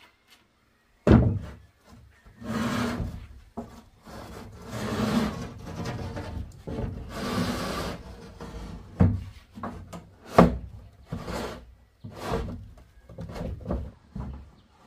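A corrugated roofing sheet being pushed up and slid across a wooden pole roof frame: long scraping rubs as it slides over the rafters, broken by hard knocks, the loudest about a second in and two more near the end.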